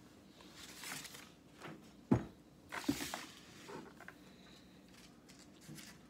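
Quiet handling of paper-craft things on a tabletop: soft rustles and light taps, with one sharp knock about two seconds in.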